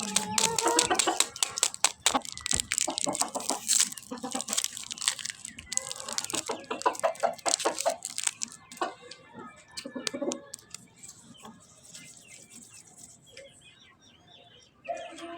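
Plastic snack packaging crinkling and rustling as it is handled, dense for the first several seconds, then sparser and quieter.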